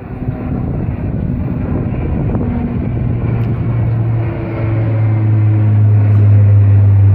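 De Havilland Dash 8 Q400 twin-turboprop airliner flying low overhead: a rushing engine noise, joined about three seconds in by a deep, steady propeller hum that grows louder toward the end.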